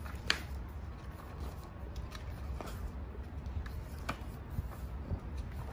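Pages of a paperback book being turned by hand: paper rustling, with a few short flicks, the sharpest about a third of a second in. A low steady rumble runs underneath.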